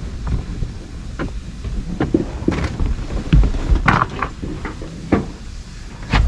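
Irregular knocks and thumps of someone working on a sailboat's deck, handling fenders and their lines, over a low rumble of wind on the microphone.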